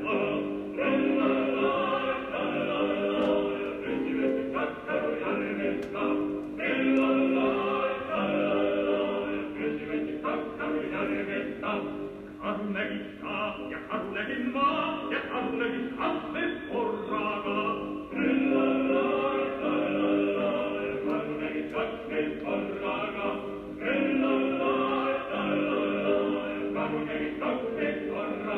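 Operatic male voice singing an Estonian folk melody with accompaniment, in phrases that break every six seconds or so. It is an old 1930s recording with no treble above about 4 kHz.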